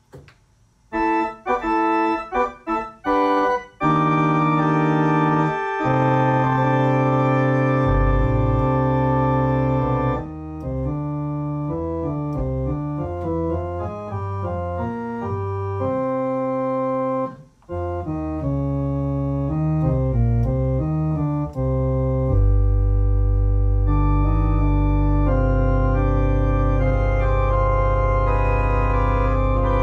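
Organ playing a slow instrumental piece: a few short, detached chords at first, then sustained chords moving step by step, with a deep bass note coming in about two-thirds of the way through and holding under the chords.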